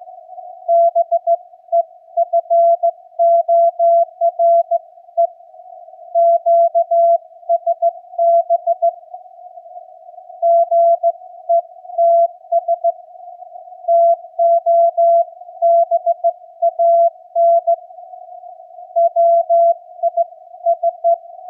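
Slow Morse code (CW) at about 15 words per minute heard through a Yaesu FTDX10 transceiver: a single steady tone near 700 Hz keyed on and off in dots and dashes, with a narrow band of receiver hiss filling the gaps between characters.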